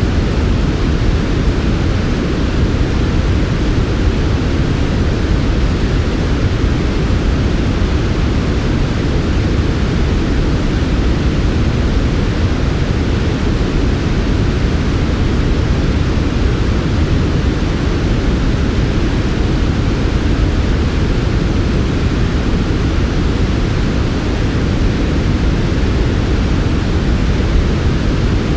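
Steady synthetic 'white noise' for sleep: an even, smooth hiss, heavier in the low end than true white noise, that never changes.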